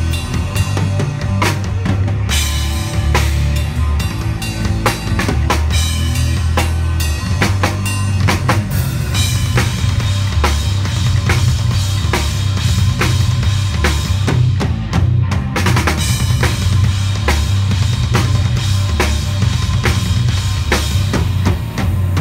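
PDP double-bass-drum kit played with a driving beat of kick, snare and cymbals, over a band's bass line that steps from note to note.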